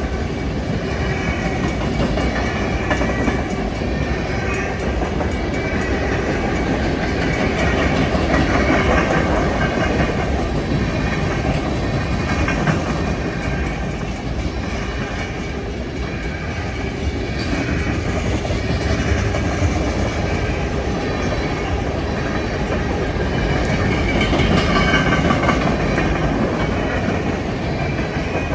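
Freight train rolling past, a steady rumble of wagons on the rails with the clickety-clack of wheels over rail joints.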